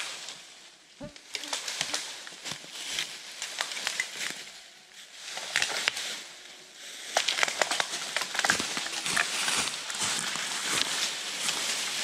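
Dry leaf litter and dead twigs crunching and crackling under footsteps, with a long dead branch dragged and snapping over the forest floor. The crackling is sparse at first and grows denser and louder in the second half.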